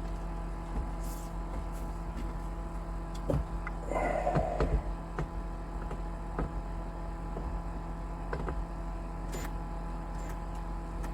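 Light scattered clicks and taps of screws and hardware being worked by hand while the screws are started into a shelf bracket, with a short scraping rustle about four seconds in. A steady low hum runs underneath.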